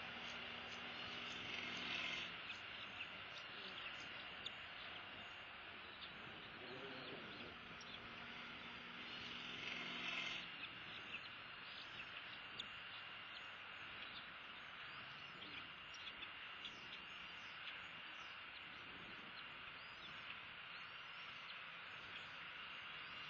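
Steady outdoor background dominated by insects: a continuous high drone with a thin high tone running through it, and scattered light ticks. A faint low hum comes and goes twice, stopping about ten seconds in.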